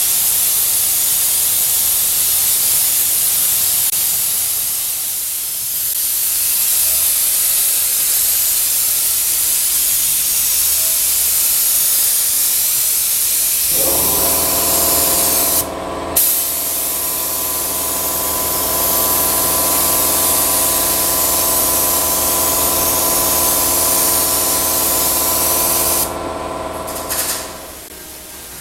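Compressed-air spray gun spraying paint in long continuous passes, a loud steady hiss that breaks off briefly about halfway and again a couple of seconds before the end. About halfway through a steady hum of several tones comes in beneath the hiss.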